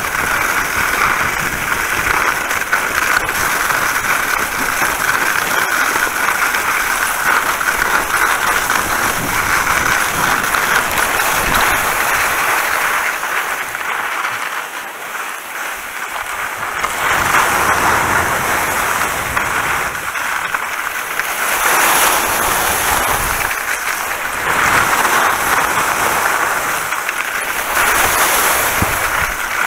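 Skis scraping over wet snow with wind rushing over the camera's microphone during a downhill run, a loud continuous hiss that swells and eases several times and drops off for a couple of seconds about halfway through.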